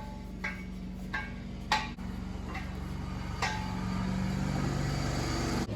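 Steel jack stands being set under a car: a few short metal clicks and knocks, over a steady low hum.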